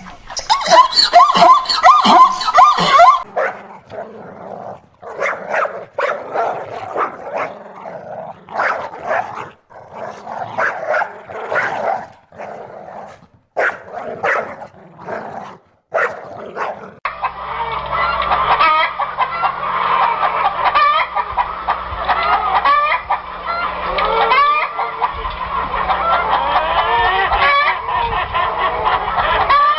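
Domestic poultry calling: short, repeated calls from a few birds, then from about halfway through a dense run of overlapping calls from a larger flock. The sound changes character twice as separate clips are joined.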